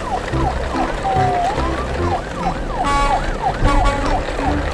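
Electronic siren sound, quick falling-and-rising sweeps about three a second, over background music with a bass line.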